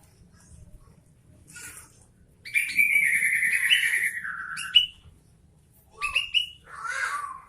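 Sooty-headed bulbul (kutilang) singing: a loud warbling, chattering phrase of about two seconds starts a couple of seconds in, followed by a few short sharp notes and a rougher burst near the end.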